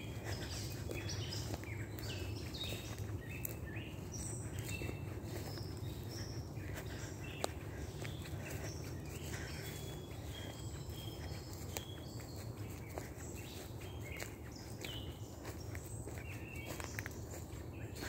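Footsteps walking on a leafy dirt woodland trail, with many small birds chirping in short calls throughout, over a steady low rumble.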